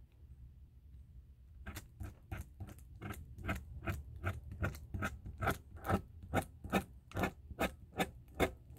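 Metal dab tool scraping sticky rosin across parchment paper in quick, regular strokes, about three a second, growing louder toward the end.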